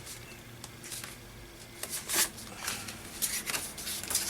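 Paper being handled and pressed down by hand: a handful of short rustles and scrapes of paper sheets, mostly in the second half.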